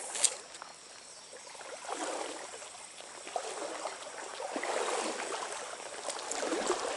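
Water of a small trout stream rushing and trickling, swelling and easing every couple of seconds, with one sharp click just after the start.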